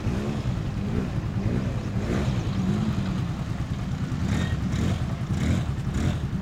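ATV engine being throttled on and off as the quad drives through shallow water, its pitch rising and falling repeatedly. From about two-thirds of the way in, short bursts of splashing water come in over the engine.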